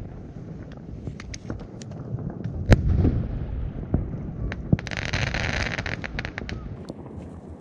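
Fireworks going off: scattered sharp cracks and pops, with one loud bang about three seconds in. From about five seconds in, a hissing rush full of crackles lasts around two seconds.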